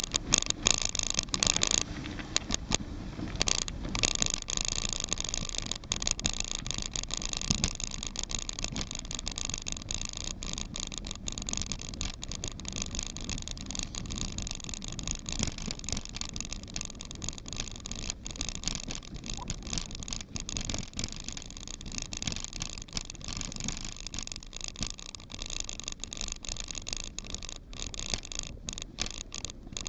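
Mountain bike riding fast down a dirt and gravel single track: a steady rush of tyre and air noise with frequent rattles and knocks as the bike goes over bumps. The first few seconds are the loudest.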